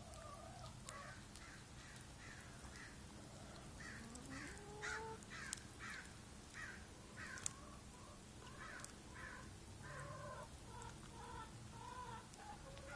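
Chickens clucking and calling, a run of short calls a few tenths of a second apart, with one longer rising call about four seconds in. A few sharp ticks come in between.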